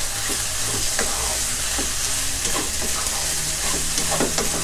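Pork belly pieces in shrimp-paste curry paste sizzling in a nonstick wok as a wooden spatula stirs and scrapes them. The irregular scrapes and taps sit over a steady hiss, while the pork belly renders out its fat.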